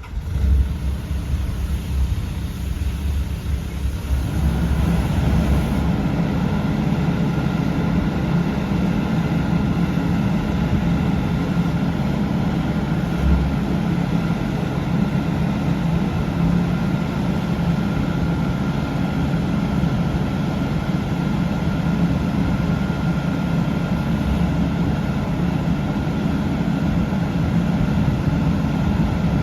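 Kubota KX080-3a 8-tonne excavator's diesel engine running, getting louder about four seconds in and then running steadily.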